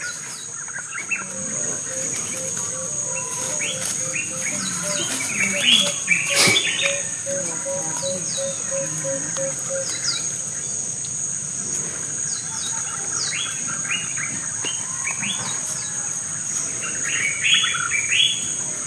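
Small birds chirping in short bursts, busiest about five to seven seconds in and again near the end, over a steady high-pitched insect drone. A run of low, evenly spaced notes repeats for a few seconds in the middle, and there is one sharp click about six seconds in.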